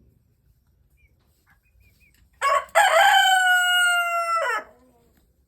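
A rooster crowing once, a single call about two seconds long that starts with a short note, holds a long slightly falling note, and drops away at the end.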